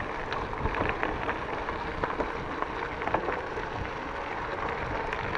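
Mountain bike tyres rolling over a gravel track: a steady crunching noise with many small ticks of grit and low rumble.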